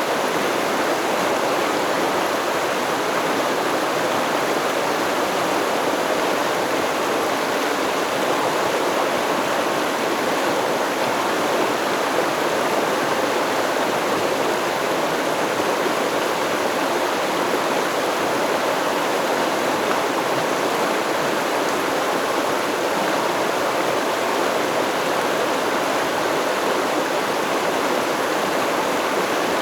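Stream water flowing and rushing over rocks, a steady, unbroken wash of sound.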